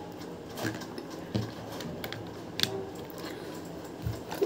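A handful of scattered light plastic clicks and knocks from handling a toy remote-control car and its water tank.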